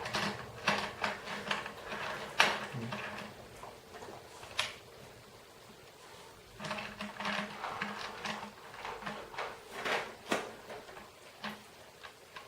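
Snare drum hardware being handled while the snare wires' strings are screwed into the strainer: a run of small clicks, knocks and rattles, with a quieter stretch in the middle before the clicking picks up again.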